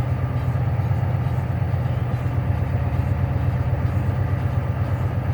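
Semi truck's diesel engine running steadily, heard from inside the cab.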